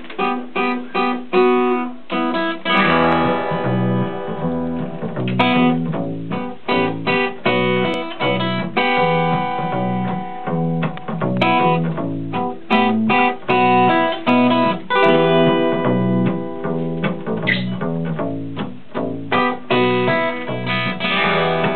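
Acoustic guitar and electric bass guitar playing an instrumental song intro live; the guitar starts alone and the bass joins about three seconds in.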